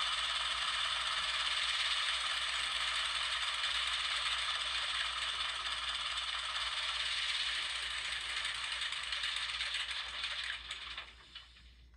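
Model-railroad DCC sound decoder playing a GE 44-tonner diesel engine running, heard through a small model-locomotive speaker as a steady, thin, rattly clatter with little bass. It dies away near the end.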